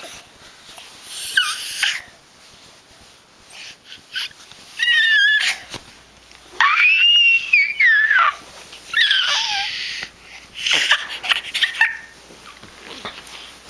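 A dog making a run of high whines and squeals that glide up and down in pitch, about five in all, the longest arching up and back down near the middle, with wheezy breaths between them.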